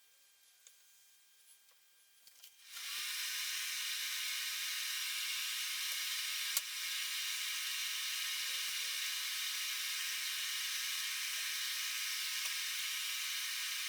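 Faint ticking, then about three seconds in a steady high hiss starts abruptly and runs on evenly, with a single click partway through.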